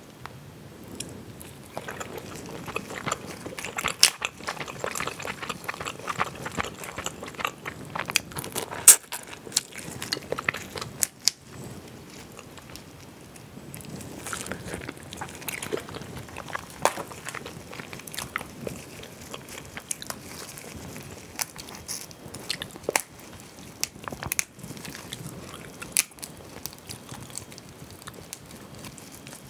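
Close-miked ASMR eating sounds: shells of mala crayfish cracking and being peeled apart with gloved hands, mixed with chewing, as many quick irregular crackles and a few sharper cracks.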